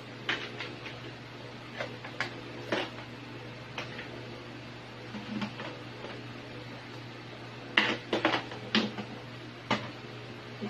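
Kitchen clatter from crab shells being handled and knocked against a metal tray and a plastic cutting board, with a cleaver at the board: scattered sharp clicks and knocks that come louder and closer together about eight seconds in, over a steady low hum.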